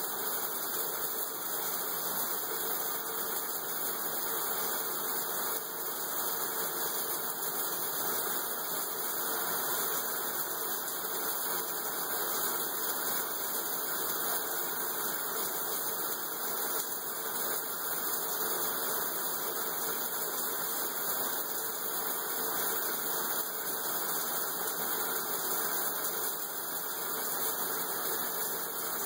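A steady, even hiss with no breaks or changes.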